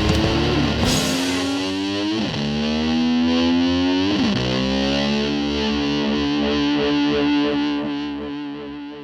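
Closing bars of a 1973 hard-rock recording: the drums and cymbals stop about a second in, leaving a distorted electric guitar. The guitar swoops down and back up in pitch twice, then holds a note that fades out near the end.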